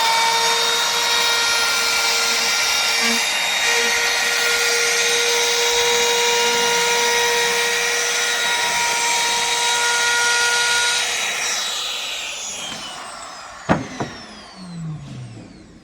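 Electric hand-held edge trimmer's motor running at a steady high whine, then switched off and winding down with a falling pitch from about eleven seconds in. A single sharp knock comes near the end as it slows.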